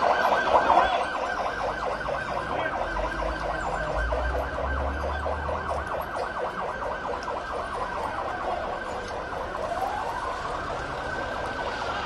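Emergency vehicle siren, first a rapid warble, then switching about seven seconds in to a slow wail that falls, rises and falls again.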